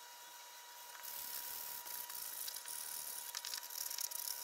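Faint scratchy rasping of a sanding sponge rubbed back and forth over rough cedar wood, starting about a second in.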